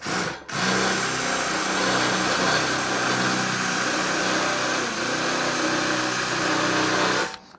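Cordless drill boring into a dry wooden board: a short blip of the trigger, then the drill runs steadily for about seven seconds and stops abruptly near the end.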